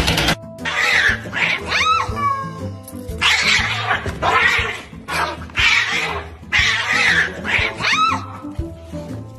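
Two cats fighting, with harsh yowls and caterwauling cries repeated through the scuffle, over background music.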